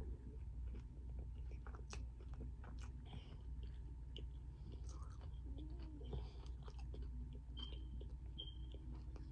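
A person chewing a mouthful of taco, with many small clicks and smacks.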